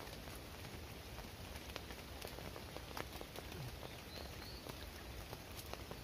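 Steady rain falling on a tarp shelter: an even hiss with scattered sharp ticks of drops throughout.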